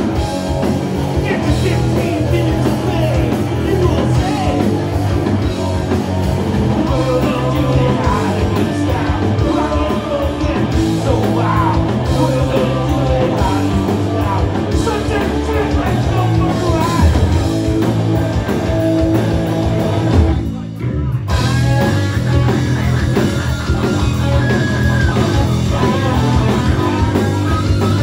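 Live rock band playing loud, with electric guitars, drums and a singer. The band breaks off for under a second about twenty seconds in, then comes straight back in.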